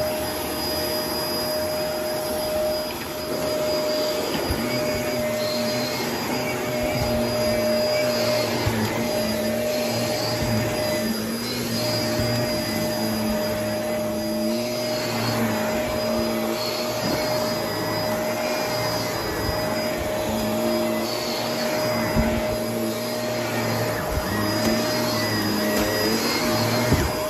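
Shark upright vacuum cleaner running on carpet, a steady high whine over the rush of suction, its lower hum swelling and fading every second or two as it is pushed back and forth.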